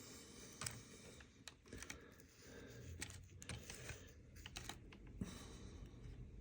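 Faint, irregular crackling clicks of flux and solder sizzling on a brass bushing and steel pulley heated by a soldering gun, over a low steady hum.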